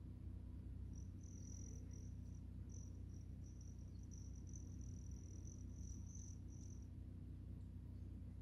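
An insect trilling: a high, steady tone broken into short stretches, starting about a second in and stopping near the end, over a steady low hum.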